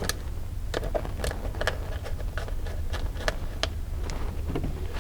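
Irregular light clicks and taps of the plastic housing of a wireless photo beam sensor as its cover is closed up and handled, over a steady low hum.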